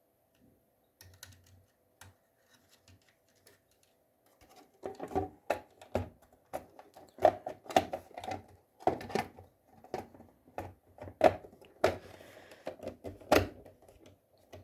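Wires being tucked into an alarm control panel: irregular clicking and knocking, faint at first and busier from about five seconds in.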